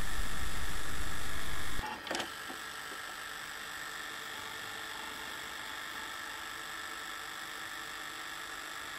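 VHS-style tape noise: steady hiss and electrical hum with faint high whining tones. About two seconds in the deep rumble cuts out with a short click, leaving a quieter steady hiss.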